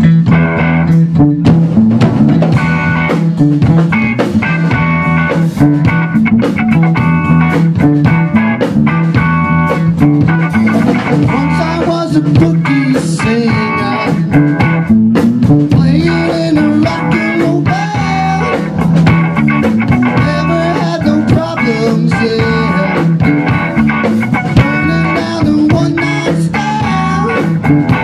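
A live band playing a song together: electric guitar, electric bass and a drum kit, with a steady bass line under regular drum hits.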